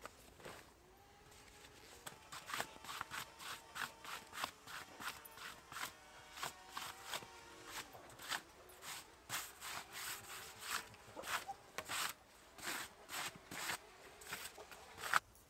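Quick rhythmic scraping strokes on wood, about two to three a second, starting a couple of seconds in and stopping after a last, louder stroke near the end.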